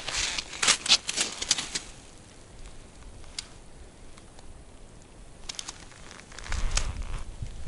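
Crisp crunching and clicking of frosty ice crust under knees and boots as a person kneels down on lake ice, dense in the first two seconds, then a few single clicks. A low rumble joins about six and a half seconds in.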